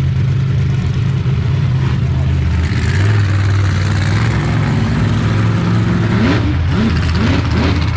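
Monster truck engines running loud and steady as the trucks drive across the arena, with a run of short revs rising in pitch over the last two seconds.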